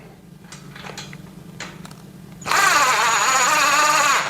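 Cordless impact driver running for about two seconds, driving a screw into the shelf frame, its motor whine wavering in pitch. It starts about two and a half seconds in, after some faint handling, and cuts off sharply.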